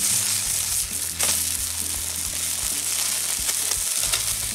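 Hamburger patties sizzling on aluminium foil over a campfire grill grate, with a metal spatula scraping on the foil a couple of times as they are flipped.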